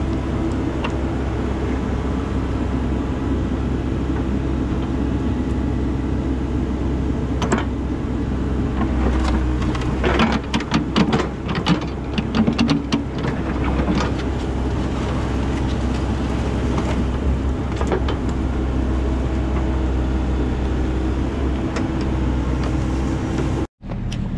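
Excavator's diesel engine running steadily while the bucket digs a trench, with a cluster of scraping and clattering from dirt and stones against the bucket about ten to fourteen seconds in.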